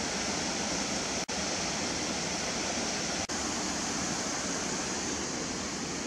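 Waterfall: a steady rush of fast-falling water, broken twice by a momentary dropout, about one and three seconds in.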